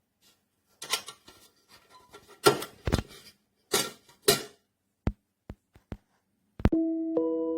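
Anodised aluminium camping kettle and its parts being handled: a string of irregular metallic clinks and knocks, a few of them sharp and briefly ringing. Soft music with sustained notes begins near the end.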